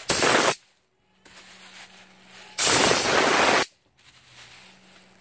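Compressed air blasting from the blow nozzle of an air compressor's coiled hose: a short hissing burst right at the start, then a longer one of about a second around the middle.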